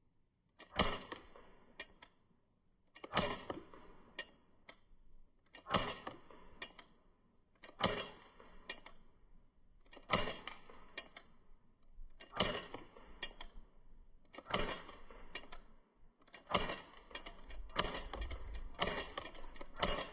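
Air pistol shots fired one at a time, about one every two seconds, roughly nine or ten in all. Each shot is a sharp crack followed by a couple of quick mechanical clicks.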